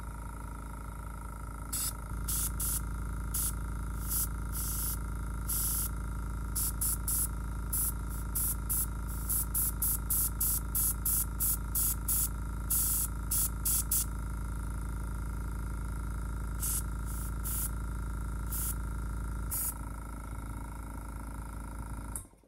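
A small airbrush compressor runs with a steady hum while an airbrush sprays paint in short hissing bursts, about two a second at the busiest, mostly over the first two thirds with a few more later. The hum cuts off suddenly near the end.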